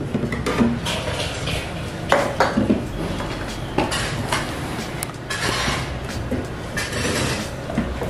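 Bottles and containers knocking and clinking as they are lifted out of the fridge door shelves and set down. Several separate knocks, with rustling and shuffling between them.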